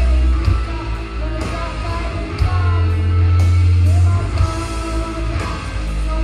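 Punk rock band playing: drums, guitar and a heavy held bass note under sung and yelled vocals.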